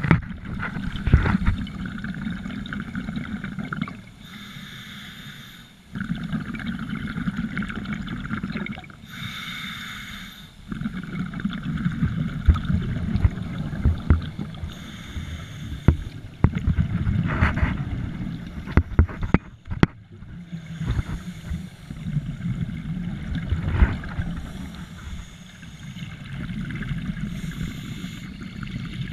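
Scuba regulator breathing heard underwater: long stretches of gurgling exhaled bubbles every few seconds, with shorter, quieter gaps between them, some carrying a high hiss of the inhale.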